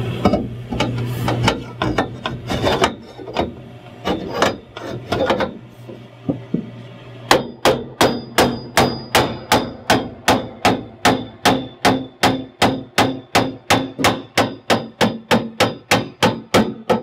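Hammer tapping a pre-notched chromoly roll-cage dash bar into place. Irregular knocks at first, then from about seven seconds in a steady run of ringing metal strikes, about three a second.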